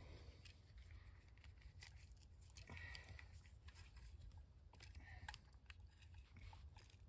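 Near silence: faint scattered clicks and rustles of hands handling tools and materials, over a low steady hum.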